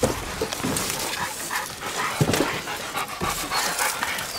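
Hog-hunting dogs moving about close to the microphone, with short, irregular sounds of breathing and movement.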